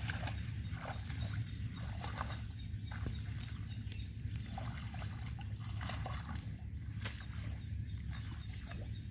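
Outdoor rural ambience with scattered animal calls over a steady low rumble and a constant high-pitched background.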